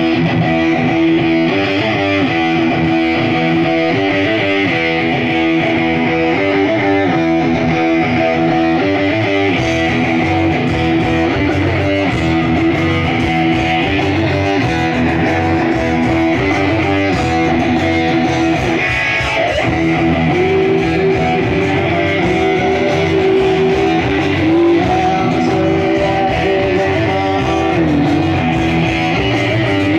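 Live rock band playing an instrumental passage on electric guitars, heard through a camcorder microphone in the crowd.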